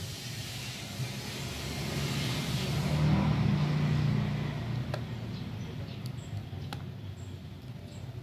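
A low rumble, like a road vehicle passing, swells to its loudest about halfway through and then fades. Three sharp clicks come in the second half.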